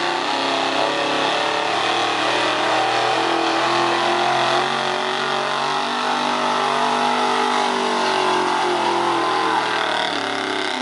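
Engine of a 1970s Ford pickup running flat out under heavy load as it drags a weight-transfer sled at a truck pull: one loud, steady engine note, its pitch dropping slightly near the end.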